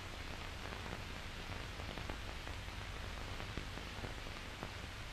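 Steady hiss with a few faint clicks and a low hum, the noise floor of an old film soundtrack; no machine sound stands out.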